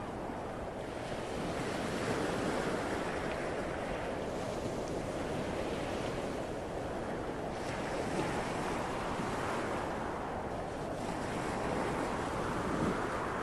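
Ocean surf: waves washing in a steady rush that swells and eases now and then.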